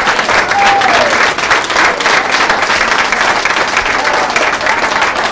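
Audience applauding, a dense crackle of many hands clapping, with a few voices calling out over it.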